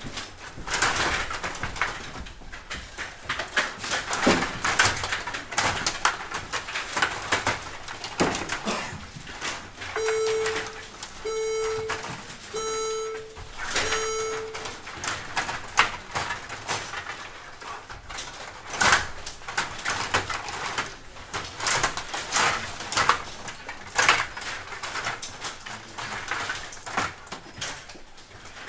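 Stiga table hockey game in play: a rapid, irregular clatter of the rods being pushed, pulled and spun and the plastic players and puck clicking and knocking on the board. Near the middle come four even electronic beeps, a little over a second apart.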